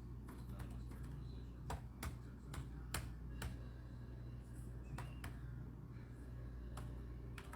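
Light, irregular clicks and taps, about a dozen spread unevenly, over a steady low hum.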